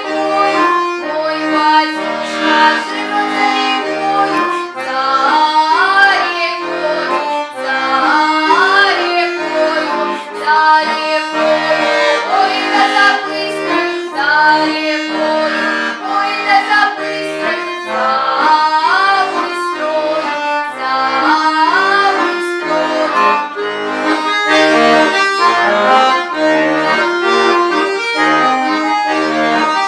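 A girl singing a Russian folk song to accordion accompaniment, the accordion holding sustained chords and bass notes under a wavering, sliding vocal melody.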